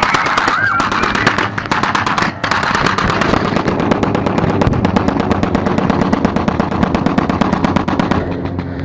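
Rapid machine-gun fire: a long, continuous run of closely spaced shots that cuts off suddenly near the end.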